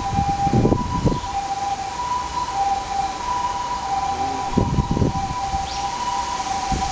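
Two-tone hi-lo emergency vehicle siren, alternating between two steady pitches. Two short low rumbles break in, about half a second in and again near five seconds.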